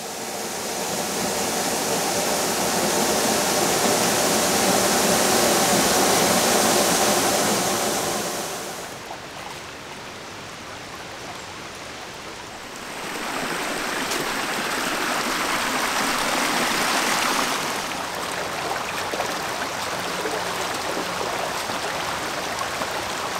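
Waterfall splashing up close: a steady rush of falling water. About eight seconds in it drops away, and it swells back about four seconds later.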